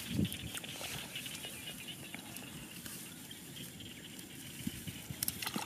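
Grass and dry leaves rustling and crackling in small scattered clicks as a small animal moves through them, over the steady hiss of an open field, with a brief low thud just after the start.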